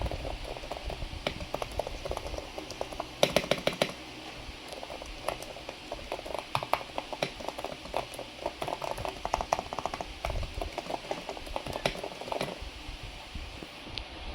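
Typing on the EPOMAKER RT75, a gasket-mounted 75% mechanical keyboard: irregular key clacks, with a quick run of about five keystrokes a few seconds in, then uneven typing that stops a couple of seconds before the end.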